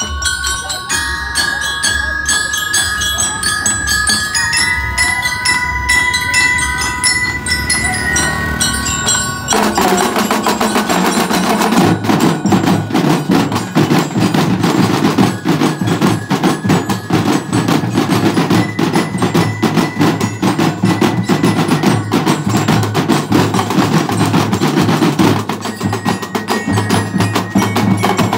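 A drum and lyre corps playing. Bell lyres ring out a melody over bass drum beats, and about ten seconds in the snare drums come in with a fast, dense pattern, followed shortly after by heavier bass drums.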